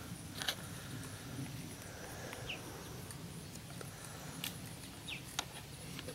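Faint outdoor rural ambience: a thin, high, evenly pulsing insect trill, with a few sharp clicks and two brief falling chirps.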